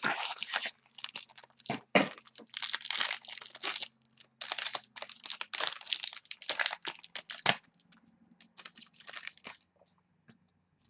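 A trading-card pack's wrapper being torn open and crinkled, with the cards rustling as they are pulled out. The irregular rustling dies away in the last second or so.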